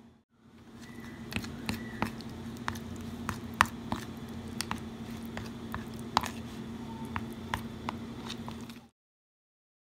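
A spoon stirring thick yogurt mixture in a bowl: wet squishing with irregular sharp clicks of the spoon against the bowl, over a steady low hum. The sound cuts off abruptly near the end.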